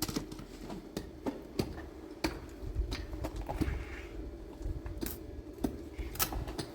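Irregular sharp clicks and knocks, a dozen or so, over a steady hum.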